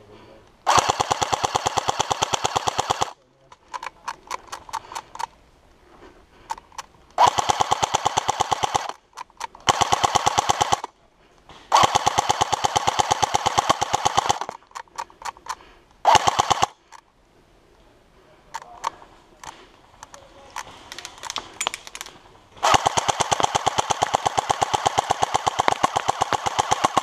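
Electric airsoft STG 44 replica firing about six long full-auto bursts, each a rapid even rattle of sharp cracks, with short pauses between them. Fainter scattered cracks come in the gaps between bursts.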